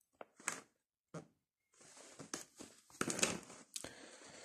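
Paper rustling as a hand shifts over the pages of a softcover workbook, after a few light taps in the first second or so. The rustling is loudest around the middle of the stretch.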